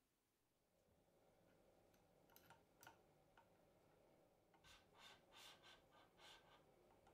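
Faint, light metallic clicks and small scrapes from handling an aluminium beam shaft coupling and a drill chuck as they are fitted together. A few isolated ticks come first, then a quick cluster of clicks in the second half.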